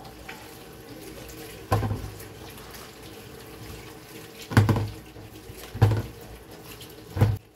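Kitchen tap running steadily over oranges in a stainless-steel sink as they are rubbed clean by hand. Four dull thuds mark washed oranges being dropped into a plastic bowl, and these thuds are louder than the water.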